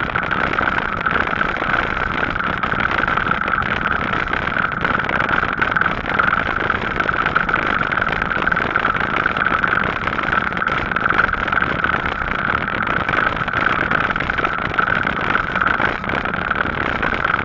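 Steady riding noise from a Gazelle Paris C7 e-bike rolling along tarmac: tyre and wind rush with a steady hum over it.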